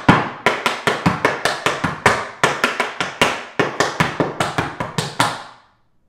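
Tap shoes' metal taps striking a wooden tap board in a quick, syncopated run of sharp taps as a tap combination is danced, stopping a little after five seconds in.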